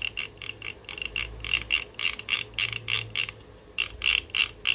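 Rapid metallic clicking of the rotary controls on a 1974 Pioneer QX-949 receiver's control board, turned back and forth through their click-stops to work in freshly sprayed contact cleaner. About five clicks a second, with a short pause a little past three seconds in.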